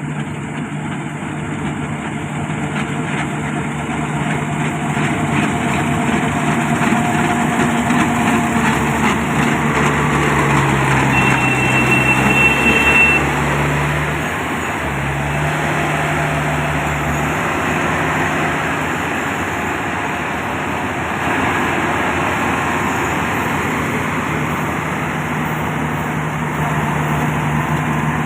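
Yanmar combine harvester engine running steadily and loudly. Its pitch dips and wavers briefly about halfway through, then settles back, and a faint high whine sounds for a couple of seconds at that point.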